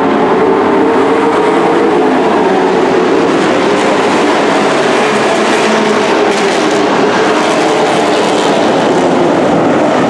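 Several dirt-track race trucks running at speed together, their engines merging into a loud, steady drone.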